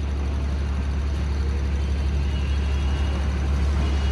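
Steady low motor hum, with a faint high tone coming in a little past two seconds in.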